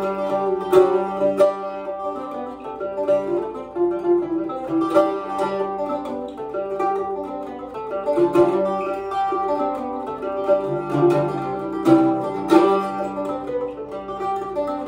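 Solo Irish bouzouki playing an Irish jig, a picked melody over ringing double courses with occasional strummed chords, in the echo of a stairwell.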